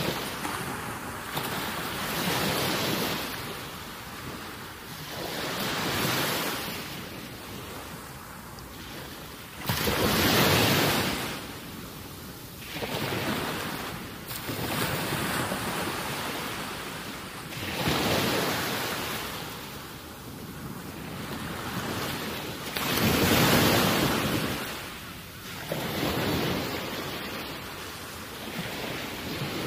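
Gusting wind on an open microphone: a rushing noise that swells and fades every few seconds, strongest in three surges.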